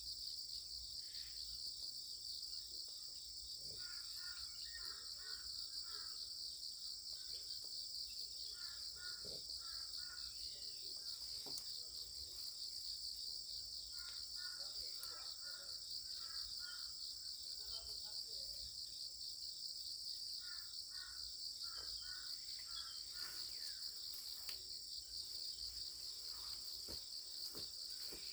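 A steady, high-pitched insect chorus of crickets or cicadas, finely pulsing and unbroken. Every few seconds a quick run of four or five short chirping notes sounds lower down, along with a few faint clicks.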